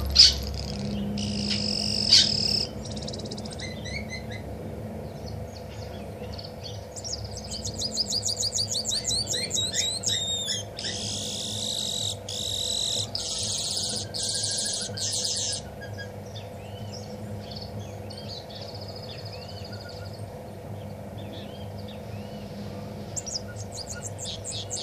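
A caged songbird singing in bursts of rapid, machine-gun-like trills and buzzy phrases, with softer calls between them. Two sharp, loud sounds come in the first couple of seconds.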